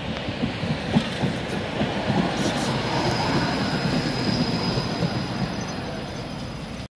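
An older Konstal tram rolls past close by on steel rails, its wheels rumbling and knocking. From about two and a half seconds in comes a thin, high wheel squeal.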